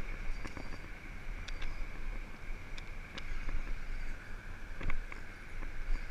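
Wind noise on the camera's microphone, with a faint steady high-pitched hum and scattered light clicks and knocks from handling the rod and reel while a hooked fish is fought.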